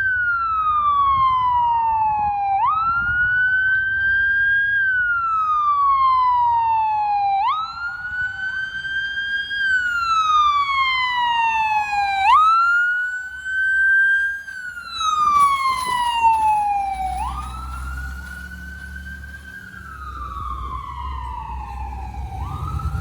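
Ambulance siren on a wail cycle: each sweep rises quickly, holds, then slides slowly down, repeating about every five seconds. A low rumble comes up past the middle.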